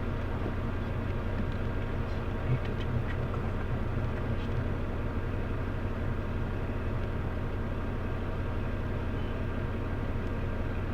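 Vehicle engine running, a steady low drone that holds even throughout.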